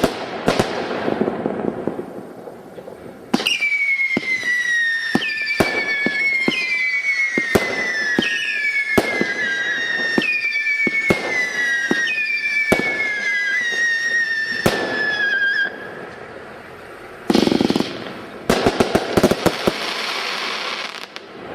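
Consumer fireworks firing: a few cracks, then a run of about eight whistling shots, one every second or so, each whistle sliding slightly down in pitch, with sharp bangs among them. After a short lull, a loud burst and a spell of dense crackling near the end.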